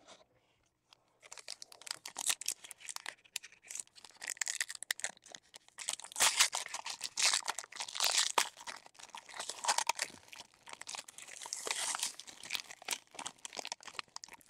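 Foil trading card pack wrappers crinkling and tearing as packs are opened and the cards are handled. It starts about a second in: a dense run of crackles and sharp snaps.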